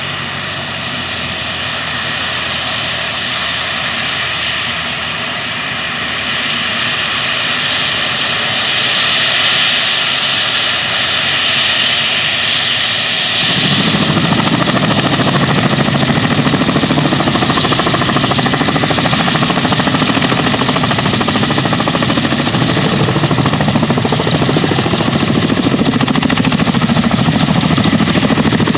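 Kamov Ka-32 helicopter's turboshaft engines and coaxial rotors running loud and steady, a high whine with thin rising whistles over it; about halfway through a heavier low rotor sound comes in and holds.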